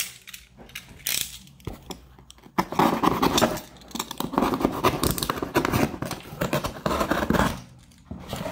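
Utility knife slicing along a corrugated cardboard box: a few scattered scratches and clicks, then a dense scratchy cutting sound for about five seconds that stops shortly before the end.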